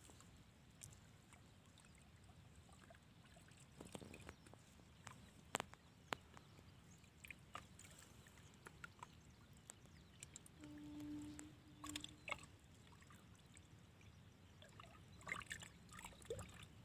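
Faint sloshing and scattered small splashes of muddy water as a foot and hands work in a flooded mud hole, with a brief low tone about eleven seconds in.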